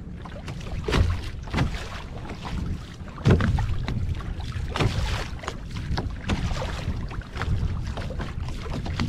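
Wind blowing on the microphone, with choppy sea water slapping against a kayak's hull in irregular knocks and splashes, the strongest a little over three seconds in.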